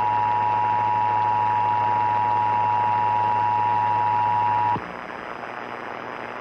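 Emergency Alert System attention signal: two steady tones (853 and 960 Hz) sounding together over a radio broadcast. It marks the start of the alert message, here a required monthly test. The tones cut off about five seconds in, leaving a steady hiss.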